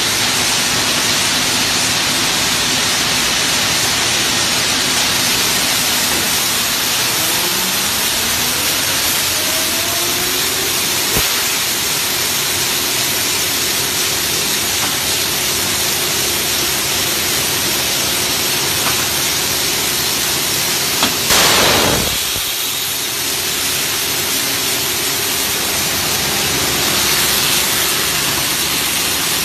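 Adhesive-tape slitting and rewinding machine running with a steady hissing whir, a faint rising whine a quarter of the way in and a short louder burst of noise about two-thirds of the way through.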